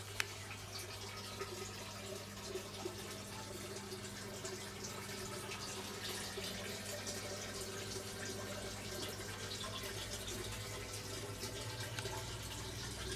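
Water trickling and dripping through hydroponic PVC grow pipes, a continuous trickle with a low steady hum underneath. A single sharp click sounds just after the start.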